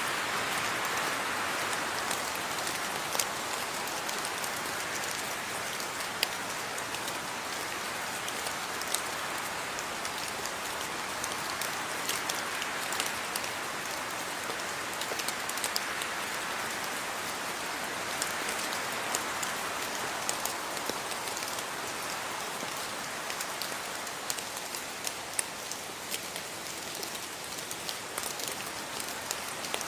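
Steady rain falling, an even hiss with many distinct drops pattering on a surface.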